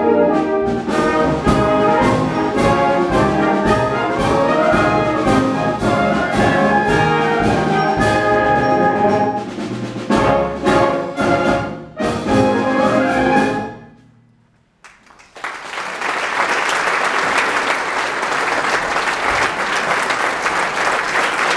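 Wind band with brass and percussion playing the closing bars of a concert march, with a couple of short breaks and a final chord that dies away about 14 seconds in. After a moment of quiet, the audience breaks into applause.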